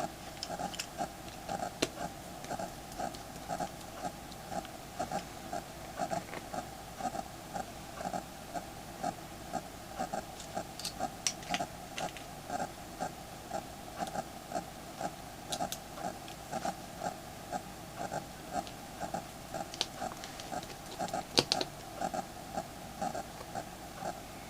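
Small, sharp clicks of a precision screwdriver and tiny screws being driven into a phone's frame, a few times, the loudest about 21 seconds in. Under them a steady background sound pulses about two to three times a second.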